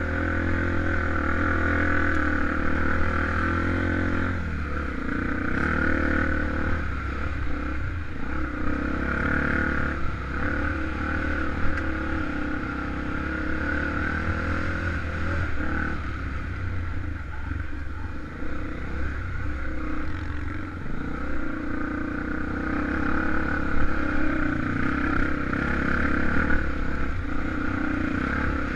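Honda XR250 Tornado enduro motorcycle's single-cylinder four-stroke engine running on a trail ride, its note rising and falling with the throttle, with some rattling clatter.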